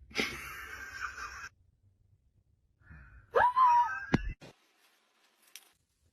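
A person lets out a harsh, breathy gasp lasting about a second and a half. After a pause, the same kind of voice gives a short, loud wail that rises in pitch, followed at once by a sharp knock.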